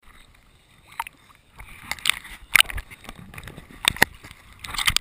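Shallow seawater sloshing and splashing against a waterproof action camera held at the surface, with irregular sharp splashes as the camera bobs at the waterline.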